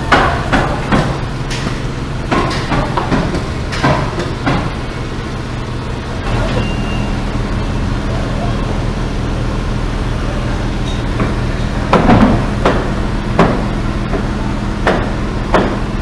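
Construction-site noise: irregular hammer blows and bangs over the steady drone of an engine running. The blows come thick in the first few seconds and again from about twelve seconds in, and the engine hum grows a little louder about six seconds in.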